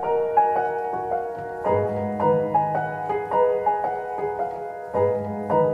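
Background piano music: a slow melody of single notes over held bass chords.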